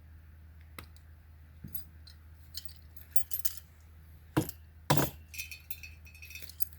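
Metal parts of a raccoon trap and its chain clinking and clicking while it is handled and set, with two louder knocks a little past the middle.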